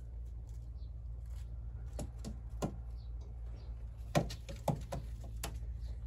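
Quiet pigeon loft: a steady low hum with a handful of light, sharp taps and clicks, a few around two seconds in and more between four and five and a half seconds in.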